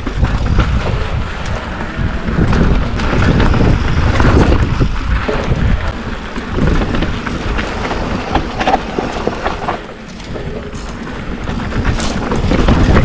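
Mountain bike descending rough dirt and rock singletrack: a steady rumble of tyres and wind on the microphone, with frequent sharp knocks and rattles as the bike hits rocks and bumps.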